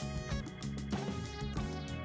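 Background music: guitar with bass and a steady beat.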